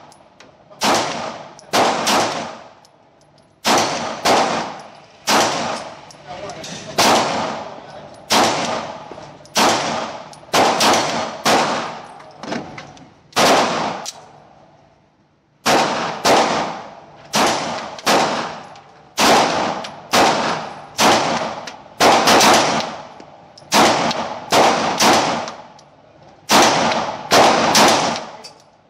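Single shots from 9 mm Sig Sauer pistols, first a P226 and then a P229, fired at a slow steady pace of roughly one a second on an indoor range, each crack followed by a short ringing echo off the walls. The firing stops for about two seconds near the middle and then resumes.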